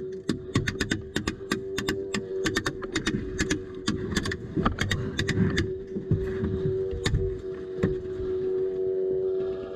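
Airsoft gun firing rapid single shots, about three or four a second, thinning to a few scattered shots near the end, over a steady mechanical hum.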